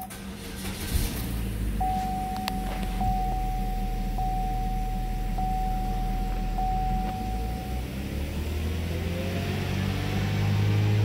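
The 1.8-litre four-cylinder engine of a 2012 Chevy Cruze starts about a second in and idles. A steady electronic warning chime sounds from the dash for several seconds. Near the end the engine is revved up to about 3,000 rpm and gets louder.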